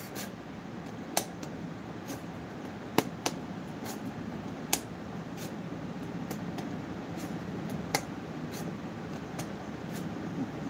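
Steady room hum with scattered light clicks and taps, a dozen or so short sharp ones spread unevenly through it.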